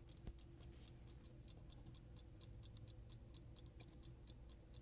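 Antique fusee pocket watch movement ticking faintly and evenly, about five ticks a second, its balance running again.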